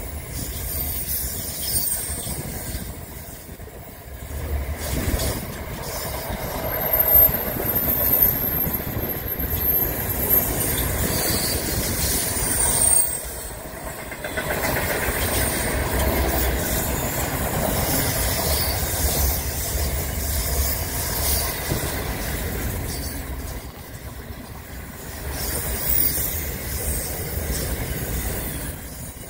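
Intermodal freight train wagons rolling past close by: a continuous rumble of steel wheels on rail that dips and swells as the wagons go by. A few brief high wheel squeals come through about a third of the way in and again near the middle.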